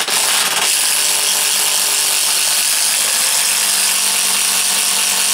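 Makita cordless drill boring through a wooden wall stud: a few short bursts at the start, then running steadily under load.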